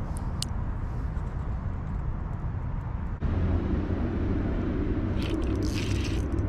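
Steady low background rumble with no voices, stepping up abruptly and growing louder about three seconds in, with a few faint ticks near the end.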